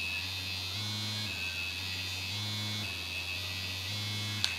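Tracy's Dog OG Pro2 suction vibrator running on its tenth setting. Its electric buzz pulses in a repeating pattern, stepping up to a higher buzz for about half a second roughly every second and a half over a steady lower one. A single click comes near the end.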